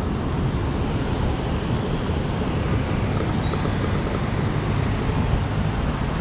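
Steady road traffic noise from a busy multi-lane city street, with wind rumbling on the microphone.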